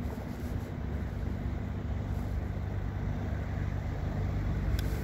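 Steady low vehicle rumble, with a faint high tick just before the end.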